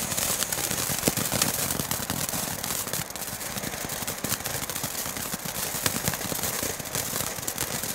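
Small Geisha Bright Peony Category F1 firework fountain burning: a steady hissing spray of sparks with dense crackling, easing off near the end.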